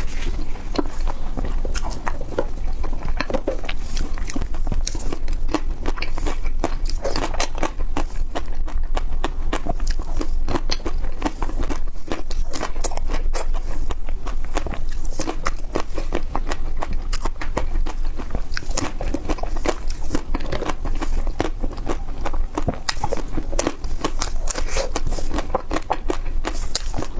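Close-miked crunching and chewing of hard, frozen ice cream: a dense, irregular run of crisp crackles and crunches as it is bitten and chewed.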